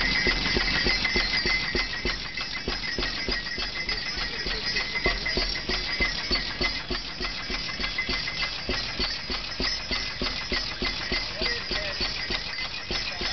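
Antique tractor engine running steadily, an even rapid knocking of several beats a second, with a faint steady high tone above it.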